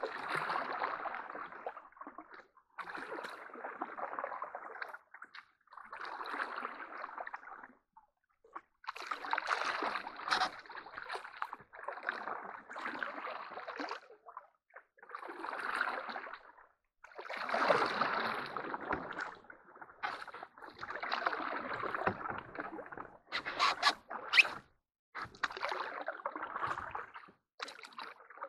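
Canoe paddles pulling through calm water, a gurgling swish with each stroke, about one stroke every two seconds. A few sharp knocks come about three-quarters of the way through.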